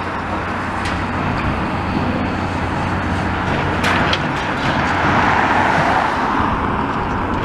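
Road traffic passing close by: tyre and engine noise of a car swelling to a peak about five to six seconds in as it drives past, over a steady low engine hum.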